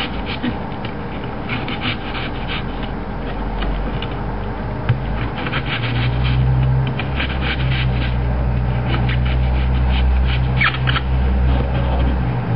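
Kitchen knife cutting into a peeled onion on a wooden table, close to the microphone: repeated short slicing and scraping strokes. About six seconds in, a low steady hum sets in under the cuts and stops just before the end.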